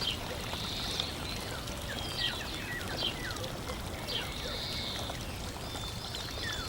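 Small birds chirping in many short, quick calls over a steady background rush of noise.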